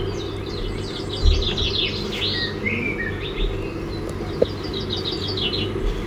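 Small songbirds chirping and singing in quick, overlapping trills of repeated high notes, over a low steady background rumble.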